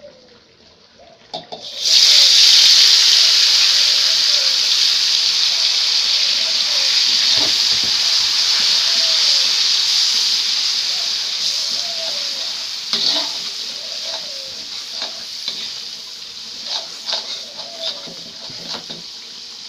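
Ground chili paste frying in hot oil in a black wok, a loud sizzle that starts suddenly about two seconds in and slowly dies down as it cooks, with the spatula scraping and clicking against the wok as it is stirred.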